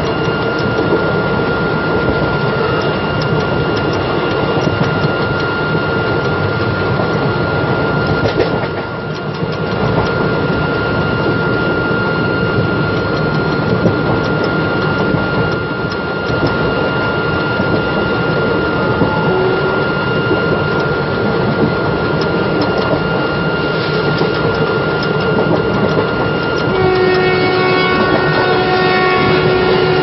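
Express train coach running fast, with dense wheel-on-rail rumble and clatter, while the WAM-4 electric locomotive's horn sounds one steady high note almost the whole time. Near the end a second, deeper horn joins in short blasts.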